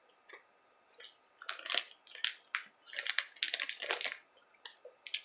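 Opened plastic candy bag of Skor minis crinkling and crackling as it is handled, in a dense run of irregular crackles.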